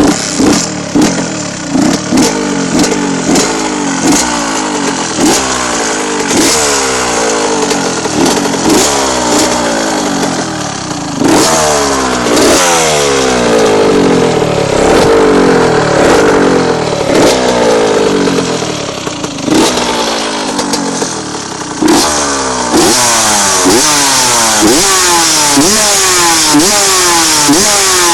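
Honda CR80's 80cc single-cylinder two-stroke engine, on its stock exhaust, catching and then being revved in repeated throttle blips, roughly one a second. Through the middle the revs are held higher for several seconds, and near the end the blips come quicker.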